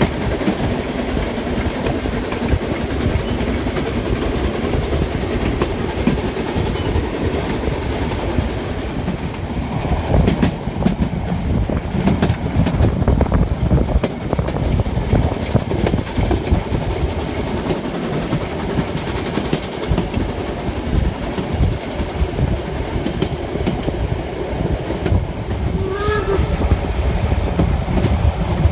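Narrow-gauge steam train heard from an open coach platform: steady rumble and clickety-clack of the coaches' wheels on the track. Near the end come two short toots of the steam locomotive's whistle.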